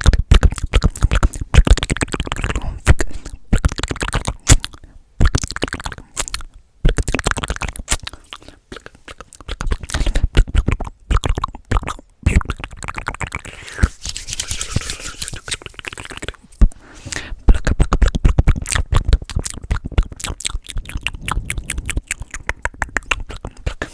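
Fast, aggressive ASMR mouth sounds, close to the microphone: a dense run of rapid clicks, pops and smacks, broken by a few brief pauses.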